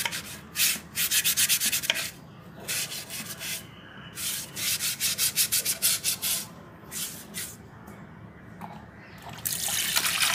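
Green scrub pad rubbed hard against the inside of an unglazed terracotta clay pot: quick rasping strokes in bursts of about a second, several strokes a second. Near the end a tap starts running, water spraying into the pot.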